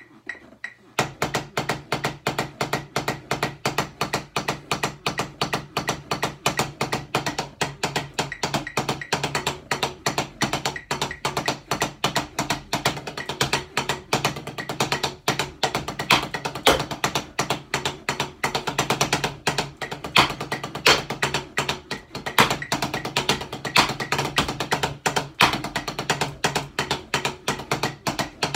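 Drumsticks playing fast, continuous patterns across a quads-style set of tenor practice pads, a dense stream of sharp taps that starts about a second in.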